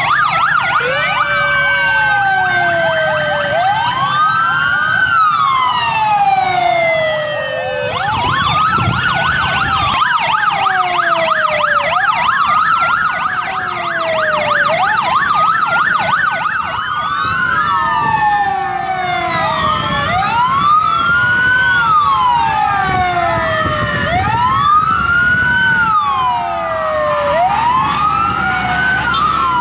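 Several emergency-vehicle sirens of a fire-brigade convoy sounding together: overlapping rising and falling wails, each taking two to three seconds and out of step with the others. About eight seconds in, one switches to a fast warble for several seconds, then the slow wails take over again.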